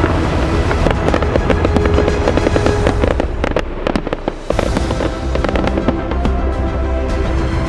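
Fireworks crackling: a rapid, dense string of sharp pops that thins out after about six seconds, with music underneath.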